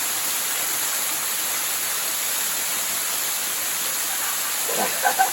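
A waterfall pouring: steady, even rushing of falling water. Near the end a person's voice cuts in briefly, twice.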